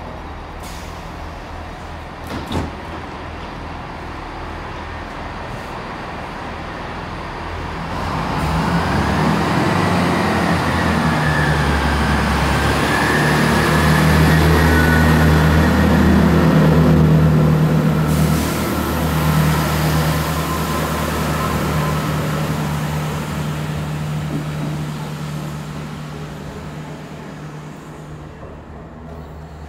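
Chiltern Railways diesel multiple unit pulling out of a station: its diesel engines throttle up about eight seconds in with a rising whine, are loudest in the middle as the carriages pass, then fade as the train leaves. A single sharp knock comes a couple of seconds in.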